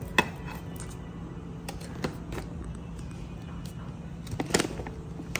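Groceries being handled on a granite countertop: a few light knocks and taps as cans and packages are moved, over a steady low hum.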